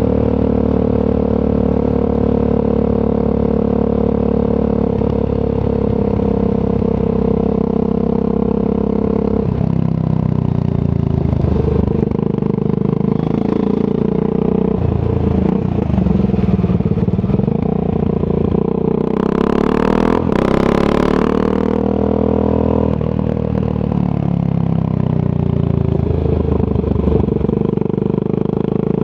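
Triumph Scrambler 400 X motorcycle's single-cylinder engine heard through a Zard aftermarket exhaust, running at a steady note at first, then rising and falling in pitch as the bike accelerates and changes speed. A brief burst of hiss comes about two-thirds of the way through.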